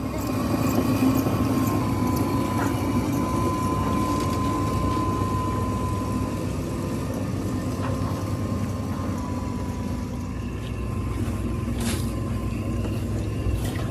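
Heavy machinery running steadily: a low engine drone with a thin, steady high whine over it, and a sharp knock or two near the end.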